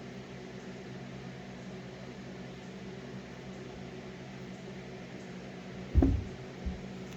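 Steady low hum of a running appliance such as a fan or air conditioner, with a dull bump about six seconds in and a lighter one just after.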